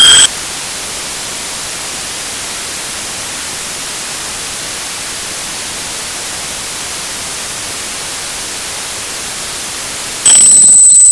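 Steady hiss of broadcast static in a mock emergency alert, after a high alert tone cuts off right at the start. Near the end a loud, steady high-pitched alert tone starts.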